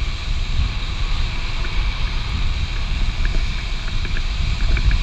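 Wind buffeting the camera microphone over the steady rolling noise of longboard wheels on asphalt at downhill speed.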